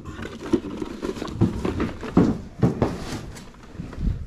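A run of irregular thumps and knocks, about two a second, the loudest a little past two seconds in.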